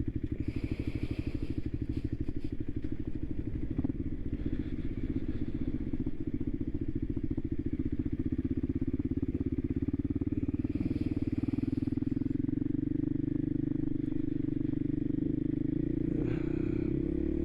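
Voge 300 Rally's single-cylinder engine running at low, steady revs as the motorcycle rides slowly along.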